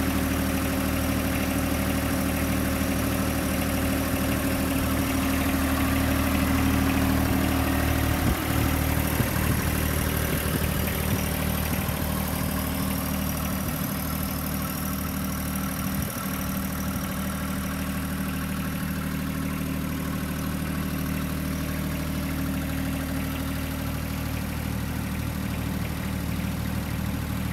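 John Deere 1025R compact tractor's three-cylinder diesel engine idling steadily.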